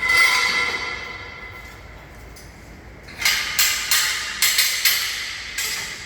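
Steel scaffolding parts being struck and handled during dismantling: a metal clang at the start that rings on and fades over a few seconds, then a quick series of clanks, about three a second, from about three seconds in.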